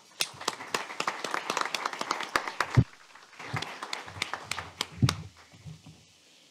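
Applause from a small audience and the panel, dense for about three seconds, then thinning out and dying away about five seconds in. A low thump about three seconds in is the loudest sound.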